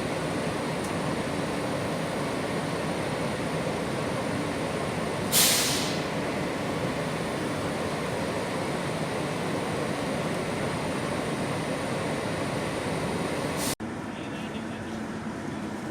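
Subway train running with a steady rumble, and a brief loud hiss about five seconds in. The sound cuts off suddenly near the end, giving way to a quieter, different background.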